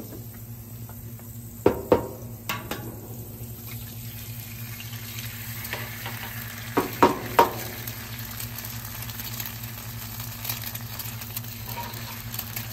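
Eggs being cracked and fried on a hot Blackstone griddle: two sets of sharp taps, about two seconds in and again about seven seconds in, over a steady sizzle of butter and eggs frying. The sizzle grows louder about halfway through.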